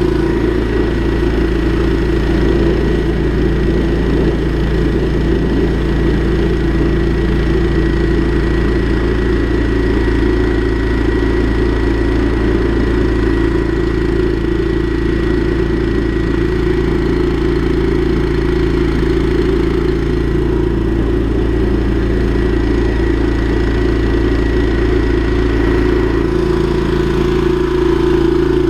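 Drain jetting machine's engine-driven pump running steadily at a constant pitch while pipes are jetted, a low engine drone with a thin high whine over it.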